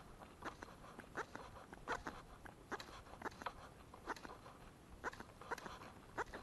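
Faint, sharp clicks, about two a second and unevenly spaced, from the spinning rod and reel being handled while a lure is worked through the water.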